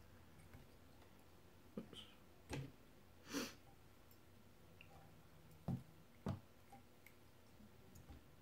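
Quiet handling of a whip finish tool on the thread of a jig in a fly-tying vise: a few soft clicks and taps, and one short rustle about three and a half seconds in.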